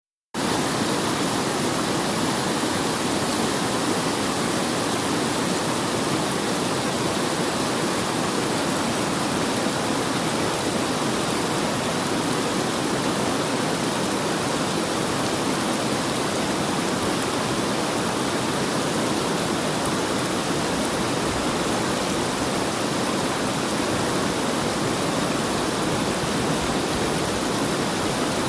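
River water rushing and babbling over rocks, a steady, unbroken flow.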